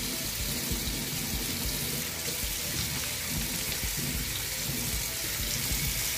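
Bathroom sink faucet running steadily, the stream of water splashing into the basin.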